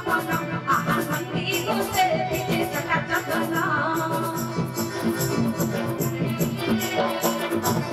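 Live Sambalpuri devotional song: a woman sings into a microphone over instrumental accompaniment, with high shaken percussion keeping a steady beat. Her voice drops out about halfway through and the band plays on.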